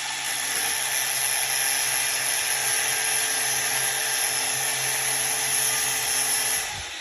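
Angle grinder running steadily with a high whine as it cuts a screwdriver slot into the end of a threaded rod. The motor cuts off near the end and winds down.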